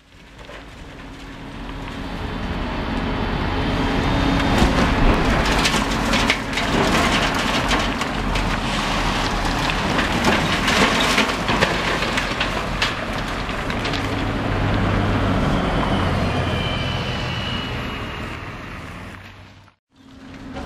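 High-reach demolition excavator's diesel engine running steadily while the machine tears into a concrete building, with repeated crunching and cracking of breaking concrete and falling debris. The sound fades in at the start and drops out briefly near the end.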